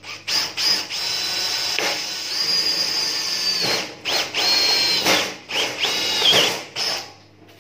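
Cordless drill with a stepped cone bit boring through steel sheet, run in a few short trigger bursts and then longer runs of one to three seconds, the motor's whine shifting in pitch as the bit bites.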